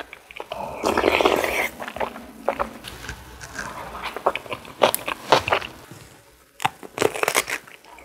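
Crunchy food being bitten and chewed close to the microphone: irregular sharp crunches, densest about a second in.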